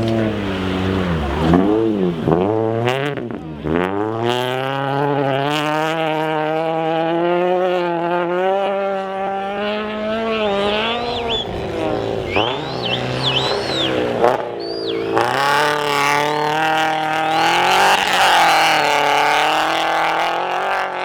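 Rally car engine at hard throttle, revs dropping and climbing again several times in the first few seconds, then held high and steady. Short, high squeals that rise and fall sound several times in the middle.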